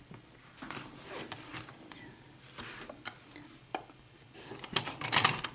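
Light metal clicks and rubbing as lock-picking tools and a picked-open pin-tumbler cylinder lock are handled, in a few short scattered bursts.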